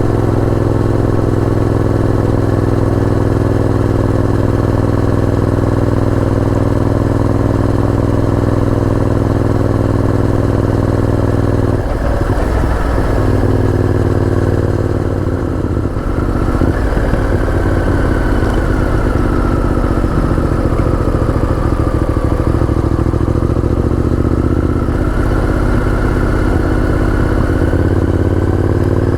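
Honda VTR1000F's V-twin engine running under way at a steady pitch; about twelve seconds in the note breaks up, then the revs rise and fall with the throttle, climbing again near the end.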